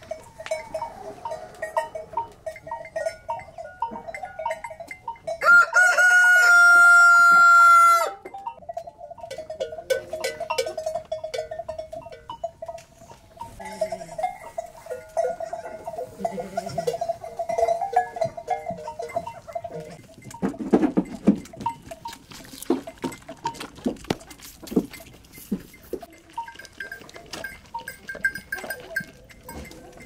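Barnyard animals: a rooster crows once, loud and drawn out, about six seconds in, over smaller calls from chickens and goats. Later come many short knocks and scuffling sounds.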